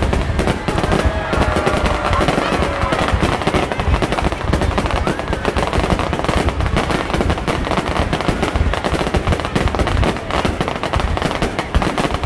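Fireworks display: a dense, continuous run of bangs and crackles with no break.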